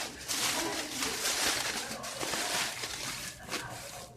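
Uneven rustling and scraping as chopped onion, jalapeño and tomato are tossed with butter and seasoning in an aluminium foil packet, the foil crinkling in pulses.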